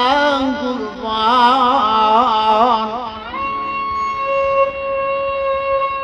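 Male voice singing an ornamented, melismatic line of an Elazığ (Harput) style Turkish folk song with music behind it. About three seconds in, the line ends and a steady held instrumental note carries on.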